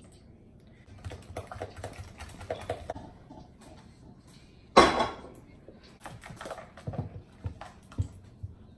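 Spatula stirring pancake batter in a plastic mixing bowl: rapid clicking and scraping in spells, with one loud sudden clatter about five seconds in and a few soft knocks near the end.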